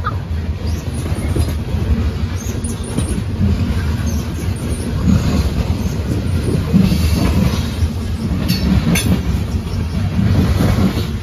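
Norfolk Southern coal train's gondola cars rolling past close by: a steady loud rumble and rattle of steel wheels on the rails, with a couple of sharp clicks near the end.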